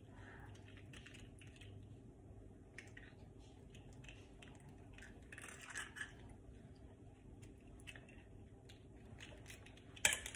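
Faint crackles and taps of an eggshell being broken open by hand over a mixing bowl, with a couple of louder clicks about six seconds in as the egg pours out. A sharp click near the end.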